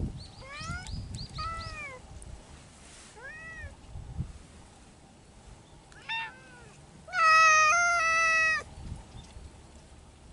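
Stray cats meowing: a run of short meows in the first few seconds, another short one about six seconds in, then one long, loud meow of about a second and a half. A low thump is heard right at the start.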